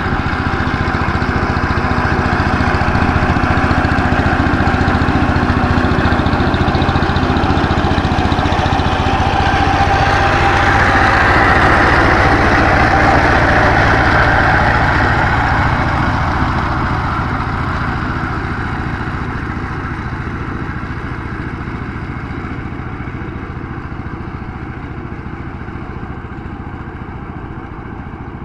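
Single-cylinder diesel engine of a two-wheel power tiller running steadily as it churns through paddy-field mud. It grows louder as it passes close, about halfway through, then fades as it drives away.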